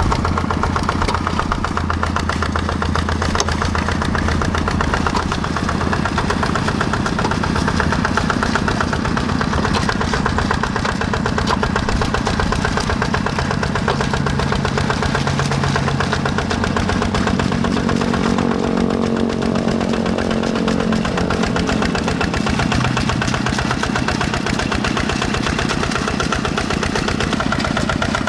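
Quick G1000 walking hand tractor's single-cylinder Yanmar diesel engine running steadily under load while plowing, a fast, even chugging of firing strokes. The engine note shifts for a few seconds in the middle.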